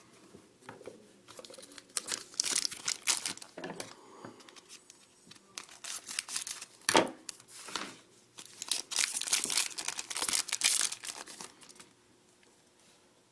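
Crinkling and tearing of a 2013-14 Titanium hockey card pack's wrapper as it is torn open and handled, in two main spells of crackling with a sharp click about seven seconds in.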